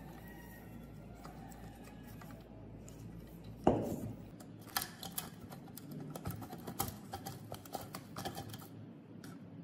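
A rusty mini air blower being taken apart by hand on a wooden workbench. There is one solid knock a few seconds in, then a string of light metallic clicks and taps as pliers work inside the steel blower housing.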